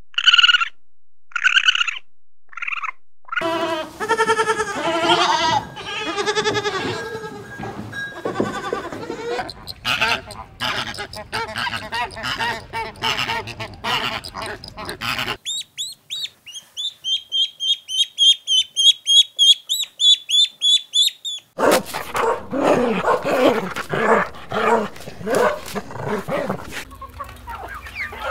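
A run of different animal and bird calls, one clip after another. First come four short separate calls. Then a dense flock chorus of overlapping calls lasts about twelve seconds, followed by about six seconds of rapid high-pitched bird chirping, and then another chorus of lower calls.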